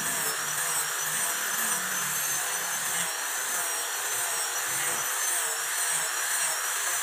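Handheld angle grinder grinding steel, a steady high motor whine that wavers slightly in pitch over the hiss of the disc on the metal. This is the finishing grind of a steel cutter jaw.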